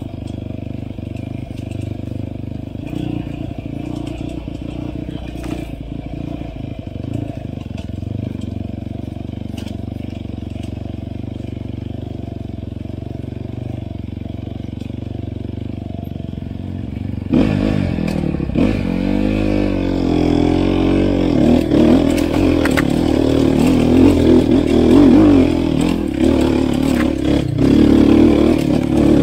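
Enduro dirt bike engine running steadily at low revs, then from about two-thirds of the way in much louder, revving up and down under throttle as the bike is ridden, with scattered knocks and clatter.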